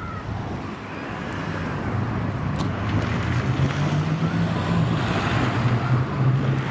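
Škoda Fabia hatchback's engine revving as the car drives a tight cone course, the pitch rising for a second or two about halfway through and then dropping back.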